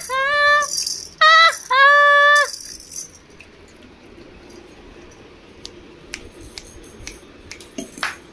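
Plastic baby rattle toys being shaken, with three loud, steady squeaky tones and a rattling hiss in the first two and a half seconds. After that it goes quiet apart from scattered light clicks of plastic toys being knocked and handled.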